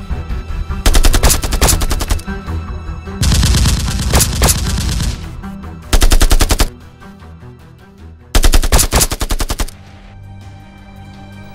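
Rapid-fire machine-gun sound effects in four bursts of one to two seconds each, over background music.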